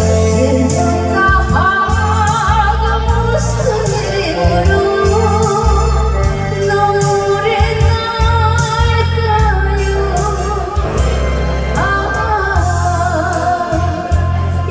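A woman singing a Korean ballad over a backing track with a steady pulsing bass; her melody wavers with vibrato and breaks off briefly a little past two-thirds of the way through.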